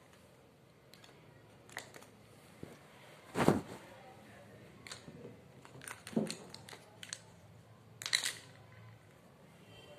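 Small plastic erasers and pencil sharpeners clicking and knocking against each other and a cardboard box as they are handled, with scattered clicks and a louder knock about three and a half seconds in.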